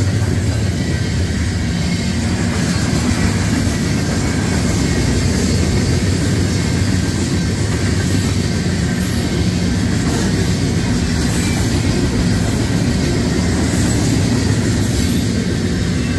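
Freight cars of a mixed manifest train rolling steadily past at a grade crossing: a continuous rumble of steel wheels on the rails.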